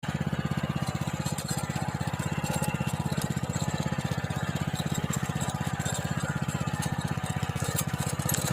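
Small engine of a motor tiller (plough machine) running steadily, with a fast, even firing rhythm.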